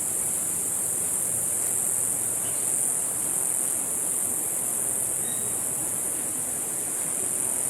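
Steady high-pitched drone of a tropical rainforest insect chorus, unbroken and even in level.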